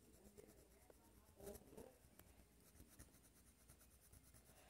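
Very faint scratching of a coloured pencil shading lightly over paper.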